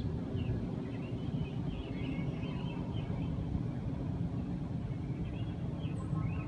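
Outdoor ambience: a steady low rumble, with birds chirping faintly on and off.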